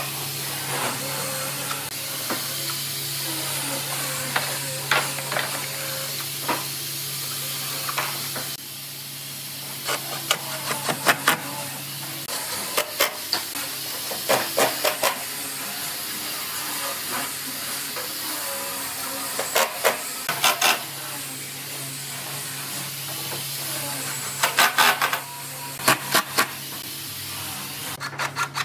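Cordless drill driving screws through pine planks into a wooden boat frame, in several short bursts of rapid clicks, over a steady hiss and a low hum.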